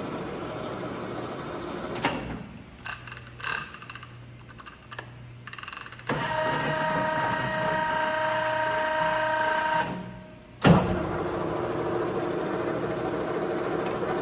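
LeBlond Makino engine lathe running under power: a quieter stretch with a few clicks, then a steady multi-tone gear whine that dies away, a sharp clunk about eleven seconds in, and the machine running steadily again.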